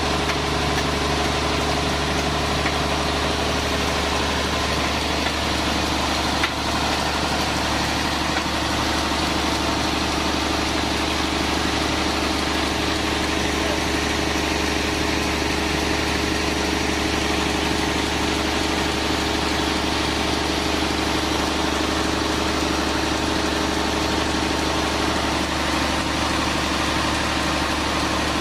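Sawmill machinery running steadily, a constant engine-like hum that holds the same pitch throughout, with one brief tick about six seconds in.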